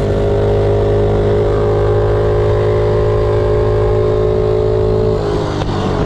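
Tillotson 212 single-cylinder four-stroke engine on a minibike running at wide-open throttle near top speed, holding a steady high note with wind rushing over the microphone. Near the end the note wavers slightly as the bike eases off.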